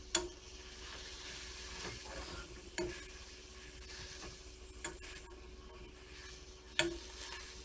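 Nopal cactus paddles and panela cheese sizzling steadily in a nonstick frying pan, with a metal fork clicking against the pan about four times as the folded paddle is pressed and adjusted.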